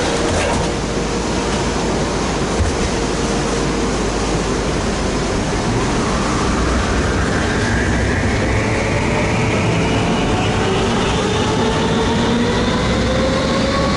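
Inside a historic Konstal tram under way: steady running noise of the wheels on the rails, with the traction motors' whine rising slowly in pitch over the second half as the tram picks up speed.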